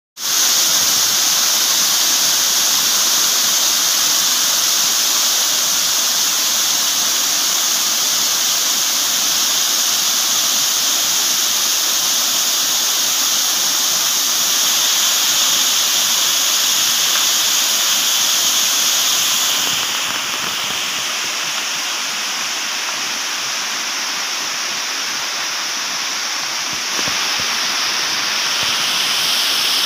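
Rain-fed waterfalls pouring down a rock face and stone steps: a steady, loud rush of falling water. It drops a little in level about two-thirds of the way through and picks up again near the end.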